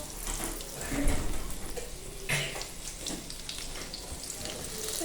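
Dough balls of bolinho de chuva batter frying in hot oil: a steady sizzle with small crackling spatters.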